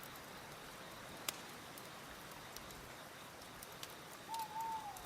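Faint recorded nature soundscape: a steady, even hiss of wind, with a few small crackles and, near the end, a short whistled animal call that dips in pitch.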